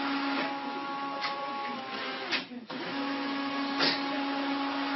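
Inkjet all-in-one printer printing: its mechanism runs with a steady hum and whirr, broken by a few short clicks. About halfway through it stops for a moment, then starts up again.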